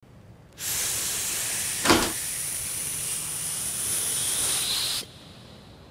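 A steady hiss lasting about four seconds, with one sharp knock about two seconds in; the hiss cuts off suddenly.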